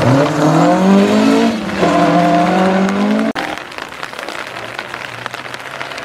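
Rally car engine revving hard as the car accelerates past on a gravel stage. The pitch climbs, drops briefly for a gear change about a second and a half in, then climbs again. The sound cuts off abruptly just past halfway, leaving a quieter, even rushing noise.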